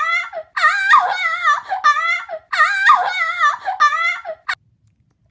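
Horse whinnying: the same high, wavering whinny heard over and over, each about two seconds long. One is already ending as the sound begins, two more follow, and it stops about four and a half seconds in.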